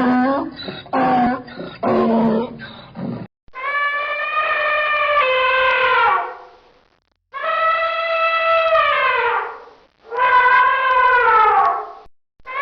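Animal calls: a few short pitched calls, then after a cut three long calls, each held on one pitch and dropping in pitch at its end.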